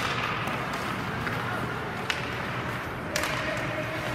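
Ice hockey play in an arena: two sharp knocks of stick and puck, about two seconds in and again a second later, over a steady rink hum and low crowd murmur.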